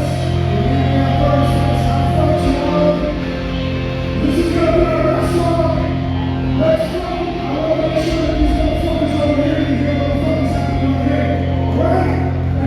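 Live metalcore band performance: amplified band music with singing, continuous and loud.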